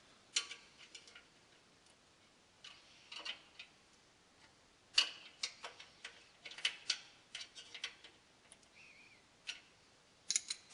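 A Phillips screwdriver and a 7/16 inch wrench tightening quarter-inch pan-head bolts and nuts on a steel mounting bracket: light metallic clicks and taps in several short clusters, with a denser run in the middle.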